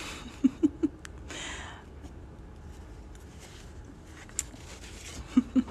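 A woman's soft nasal chuckle of three quick pulses, then a brief rustle of watercolour paper being slid and a few faint handling clicks, with a second short chuckle near the end.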